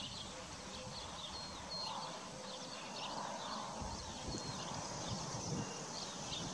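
Horses grazing in a pasture, with a few soft low thumps and crunches as they crop grass and shift their hooves. Small birds chirp throughout.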